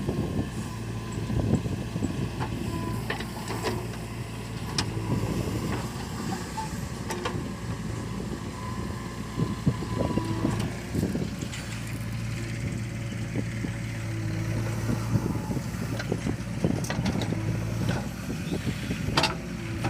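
Diesel engine of a backhoe loader working beside a tractor, running steadily with a low drone, with a handful of sharp clanks and knocks at irregular moments.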